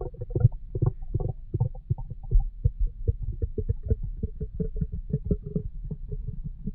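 Human stomach growling and gurgling: a quick, busy run of short bubbly gurgles and pops, several a second.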